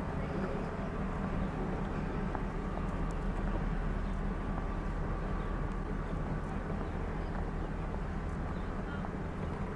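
Steady low hum and rumble of a train's engine running, even and unchanging, with a few faint small clicks above it.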